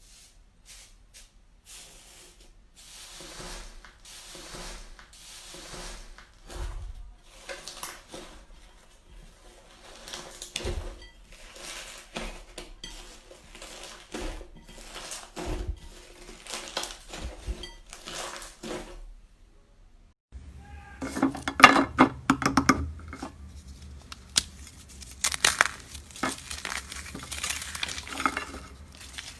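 Slime being squeezed and worked by hand: a run of small sticky pops, clicks and crackles. About two-thirds of the way through, the sound cuts to a louder, busier crackling.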